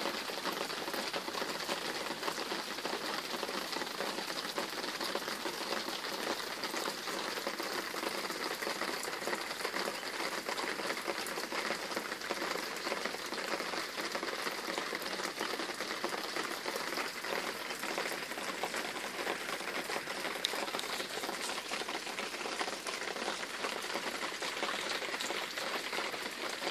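Steady rain, an even hiss of many small drops that holds at one level without a break.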